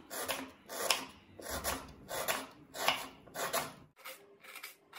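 Kitchen knife cutting a red onion on a wooden cutting board: regular slicing strokes about two a second, turning to quicker chopping about four seconds in.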